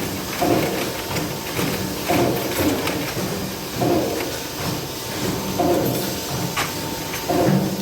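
Metalworking factory machinery cycling in a steady rhythm, one clunking stroke about every second and three-quarters, with a few sharp metallic clicks in between.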